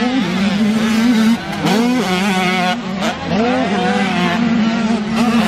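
Motocross dirt bikes running on the track, their engines revving up in rising sweeps every second or two as riders accelerate, over a steady engine drone.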